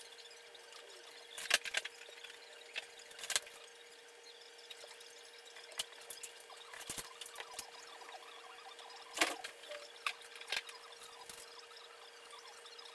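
Handling sounds as a cotton towel is wrapped and tied with waxed thread at a stone countertop: a few scattered sharp taps and knocks with light rustling, over a steady faint hum.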